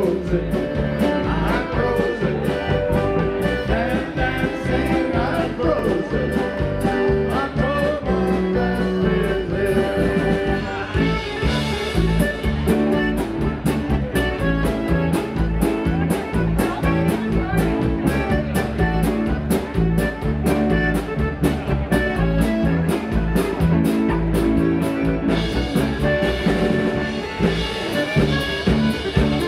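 Live Slovenian-style polka band playing with a steady drum beat: accordion, keyboard and electric guitar over a drum kit.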